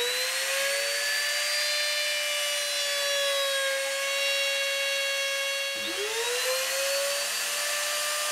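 Laminate trimmer (compact router) running at full speed with a steady high whine while routing the wooden headstock outline along a template. About six seconds in its whine rises again as the motor spins back up.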